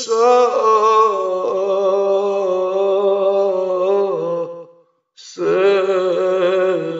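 A male voice singing a Kashmiri marsiya, a mourning elegy, without instruments: one long drawn-out line with a wavering held pitch that fades out about four and a half seconds in, then after a short pause the next line begins.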